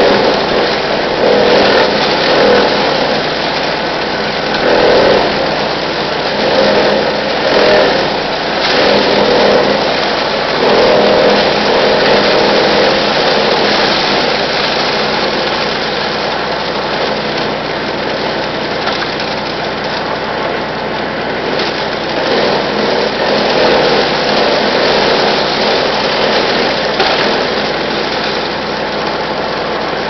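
Brush Master 3-inch wood chipper's engine running, with branches being fed in and chipped. The noise swells in repeated bouts over the first half as wood is fed through, then runs steadier.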